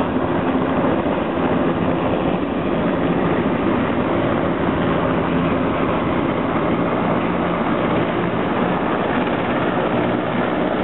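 Turbine helicopters running: a Bell 206 lifting off and climbing away while an AS350 AStar turns its rotor on the ground close by. Steady rotor and turbine noise with a low hum under it.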